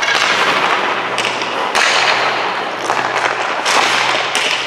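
Hockey skate blades scraping and carving the rink ice, a hiss that surges about once a second with each stride, along with sharp clacks of a stick handling the puck.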